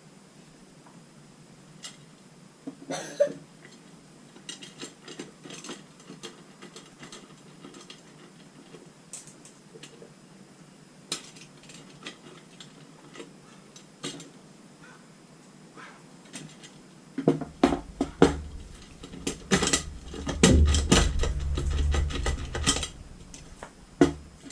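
Light metallic clinks and taps of steel wire spokes against the hub and rim as a motorcycle wheel is laced by hand. Over the last several seconds they come thicker and louder, with a low rumble of handling knocks beneath them.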